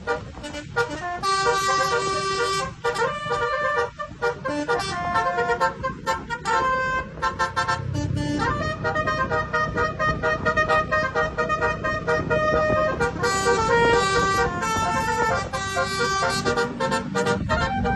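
A basuri telolet musical horn on a vehicle playing a tune: held horn notes that change pitch in steps with short breaks, over a low rumble that grows from about halfway.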